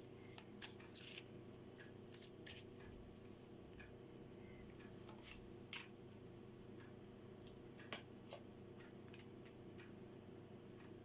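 Faint scattered clicks and soft taps of tarot cards being handled, over a steady low hum.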